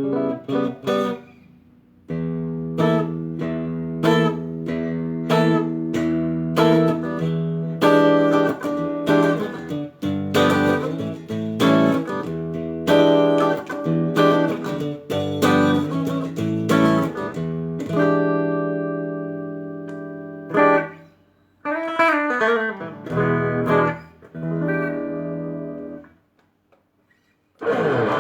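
A Chinese-made Ibanez JEM-style electric guitar being played: chords and single notes ring out. A little after twenty seconds in, some notes waver up and down in pitch, and there is a brief pause near the end.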